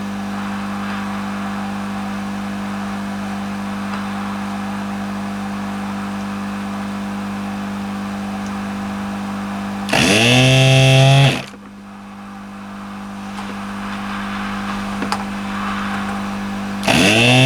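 Hot air tool blowing steadily with a motor hum, used to melt the solder on a motherboard capacitor's leads. Twice, about ten seconds in and near the end, a louder motor sound rises in pitch for about a second and a half, then cuts off.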